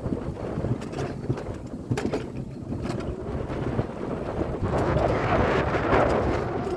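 Alpine coaster sled rolling fast along its tubular steel rails, a steady rumble with scattered sharp clicks, mixed with wind buffeting the microphone; the rushing grows louder about five seconds in.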